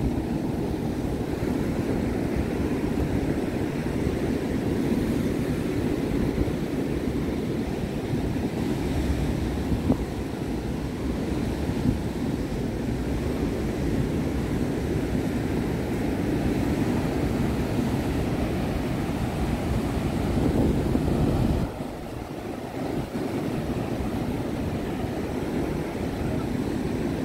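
Steady low rush of beach ambience, surf and wind noise, with a short dip in level about twenty-two seconds in.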